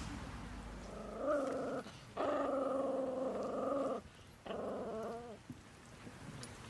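A dog giving three drawn-out pitched vocal calls, the middle one the longest at about two seconds, each ending with a wavering glide in pitch.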